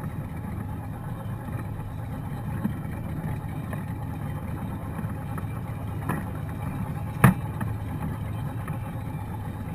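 Steady low rumble aboard a boat on open water, with a sharp knock about seven seconds in and a smaller one just before it.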